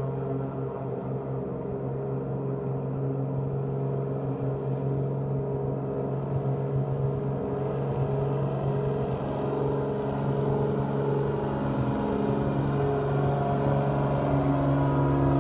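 Grumman Widgeon amphibian's twin piston engines and propellers running at take-off power as the plane speeds across the water, a steady hum that grows gradually louder and brighter as it approaches.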